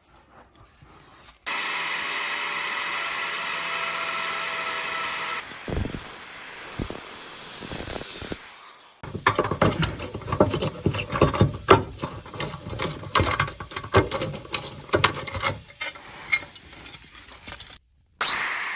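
A power tool cutting through the steel exhaust pipe, a steady squealing whine for several seconds, followed by a run of irregular metallic clanks and knocks as the exhaust parts are worked loose.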